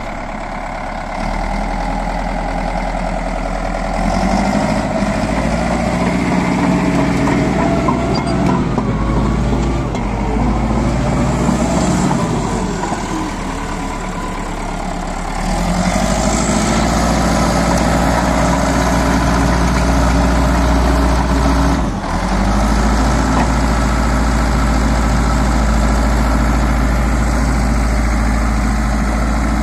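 CAT D4H crawler dozer's diesel engine running. The engine speeds up about four seconds in, eases off and wavers in pitch between about ten and fifteen seconds, then picks up again. It dips briefly about twenty-two seconds in.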